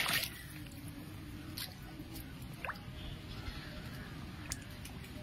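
Fish splashing as they crowd and thrash at the surface of a pond: one loud splash at the start, then scattered small wet pops and drips over a low churning of water.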